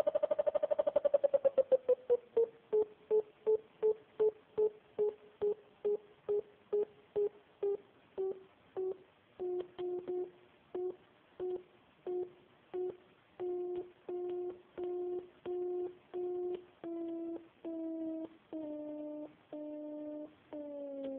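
FrSky Taranis transmitter's variometer tone beeping. The beeps start very rapid and high, then slow down and fall steadily in pitch while each beep grows longer, as the channel driving the vario falls from full toward zero. This is the vario signal of a climb rate dropping off.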